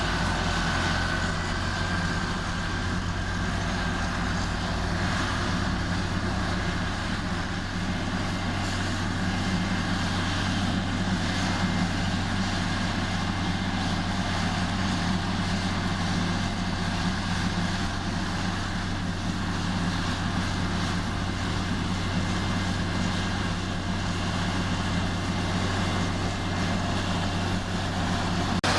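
Heavy earth-moving machine's diesel engine running steadily at a constant speed, with no revving.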